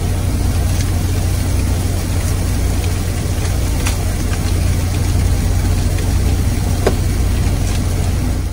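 Semi-truck's diesel engine idling, a steady low drone heard inside the cab, with a few faint clicks.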